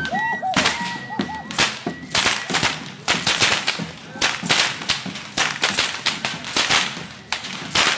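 Tlacololero dancers' whips cracking again and again, many sharp cracks at irregular spacing. A flute melody plays over the first cracks and stops about a second in.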